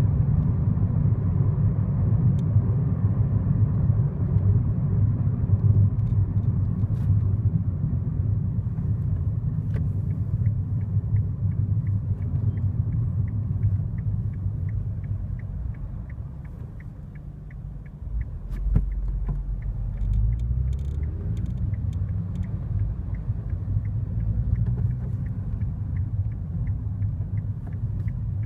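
Road and engine rumble inside the cabin of a moving 2015 Kia Rio. The rumble fades as the car slows a little past halfway, then comes back after a click as it pulls away again. Through the second half there is a steady run of faint, evenly spaced high ticks.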